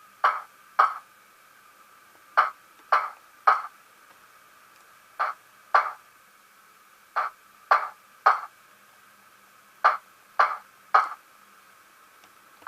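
Sound-equipped ST43 model locomotive's speaker playing short, sharp pings, mostly in threes about half a second apart, with the groups repeating roughly every two and a half seconds over a faint steady tone.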